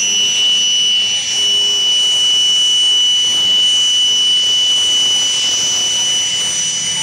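Fouga Magister jet trainer's twin Turbomeca Marboré turbojets whining steadily as it taxis. There is a high, steady whistle over a rushing hiss.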